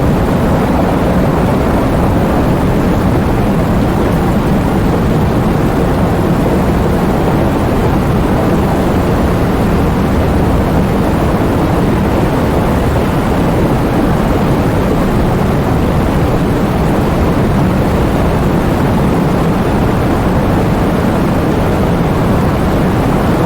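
Heavy rain pouring down with strong wind: a loud, steady, deep rush of noise without breaks or separate drops standing out.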